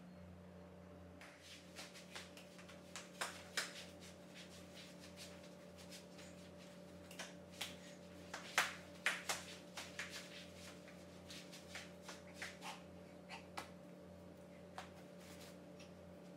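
Scattered sharp clicks and snaps from a person dancing, coming unevenly and thickest around the middle, over a steady electrical hum.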